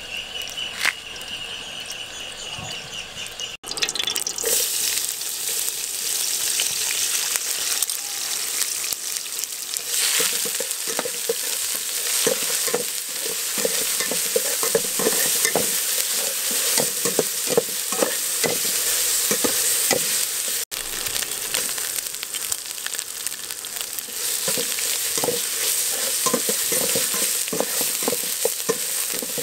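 Chopped green herb paste sizzling as it fries in oil in a metal cooking pot, with repeated short scrapes of a spatula stirring it against the pot from about ten seconds in. The first few seconds, before the sizzle cuts in, hold a high, rapidly pulsing animal call.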